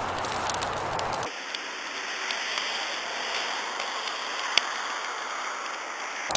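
Bonfire burning with a steady crackle and hiss, scattered small pops and one sharp, louder pop about four and a half seconds in. About a second in the sound changes abruptly as the recording switches, and the low rumble drops away.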